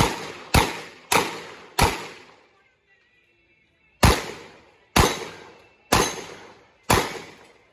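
Eight gunshots from a Smith & Wesson 929 9mm revolver, each with a short echoing tail. Four come quickly, about half a second apart; after a pause of about two seconds, four more follow about a second apart, which empties the eight-shot cylinder.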